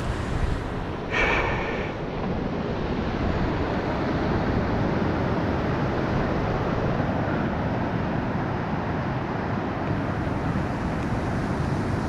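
Wind rumbling on the microphone over the wash of surf, steady throughout, with one brief, louder, higher sound about a second in.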